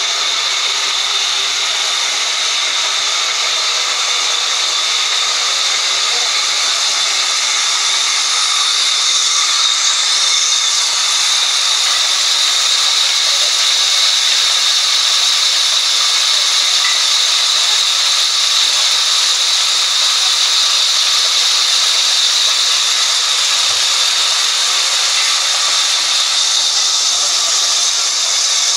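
Vertical band sawmill cutting lengthwise through a log as it is pushed along the blade: a steady, high rushing noise that does not let up.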